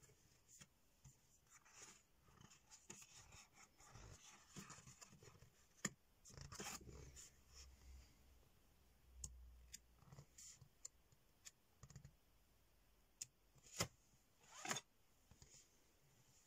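Sheets of a patterned craft paper pad being lifted and turned by hand, with faint paper rustling and sliding and a few sharper paper snaps, the loudest about 6 s in and twice near the end.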